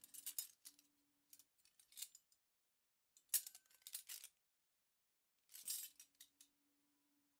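Faint metal clinks and light scrapes of cutlery on a plate, in several short clusters a second or two apart.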